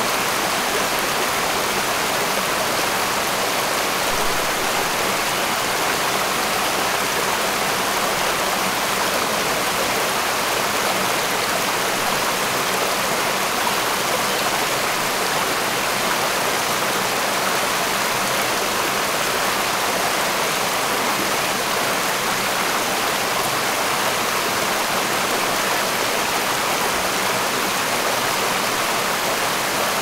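Shallow rocky forest stream running steadily, water rushing and splashing over stones and a small cascade.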